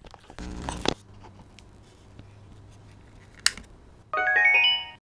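WinBridge S208 voice amplifier's speaker playing a short electronic chime of notes stepping upward near the end: the tone confirming it has paired with a phone over Bluetooth. Before it, a brief rustle of handling about half a second in and a sharp click.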